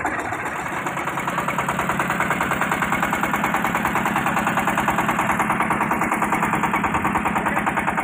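24 hp diesel engine driving a 10-inch axial irrigation pump, running steadily with an even, rapid pulsing beat.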